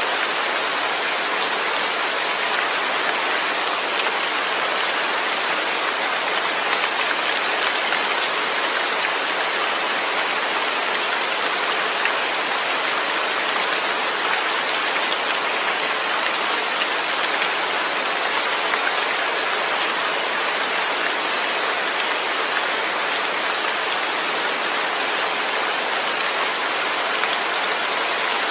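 Steady rain falling without thunder: an even, unbroken hiss of many drops.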